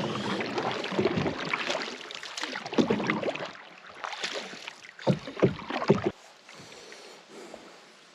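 Canoe paddles dipping and pulling through the water in uneven strokes, splashing, with a few dull knocks of paddle on hull. The strokes fade to a quiet wash after about six seconds.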